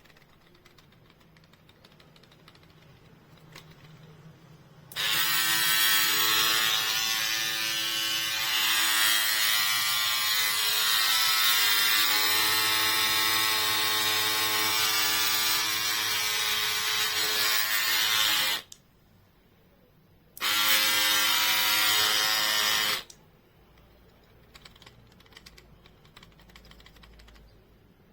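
Cordless electric hair clipper running with a steady buzz for about thirteen seconds, switched off, then run again for two to three seconds. Faint handling clicks before and after.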